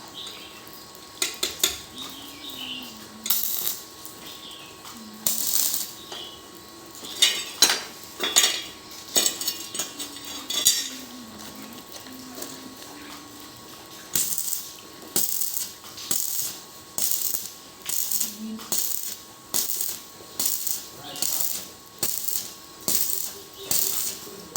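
Repeated hissy scraping or rattling strokes, irregular at first, then settling into a steady rhythm of about one stroke a second in the second half.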